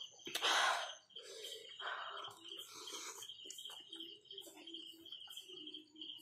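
A bird chirping in a rapid, steady string of short high notes at one pitch. A loud breathy burst of noise about half a second in, and a softer one about two seconds in.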